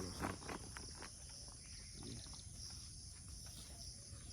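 Faint, steady high-pitched buzzing of an insect chorus in woodland, with a few faint ticks in the first second.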